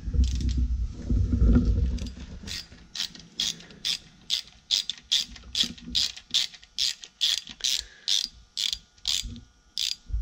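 A small socket ratchet clicking steadily, about three clicks a second, as it backs off one of the 10 mm nuts holding the single-port intake manifold on a VW Type 1 1500cc engine. The first couple of seconds hold a louder low rumble of handling noise before the clicking starts.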